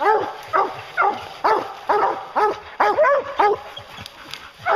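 English hounds barking at a treed black bear, a steady chop of short barks about two a second, some overlapping, with a brief pause near the end. This is the hounds' tree bark, the sign that the bear is up a tree.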